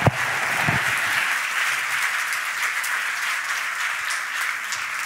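Audience applauding steadily, with a few low thumps right at the start.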